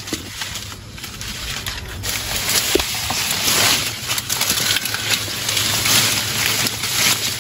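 Leaves, grass and stems rustling and crackling as hands push and search through the vegetation, an irregular scratchy noise that grows louder about two seconds in.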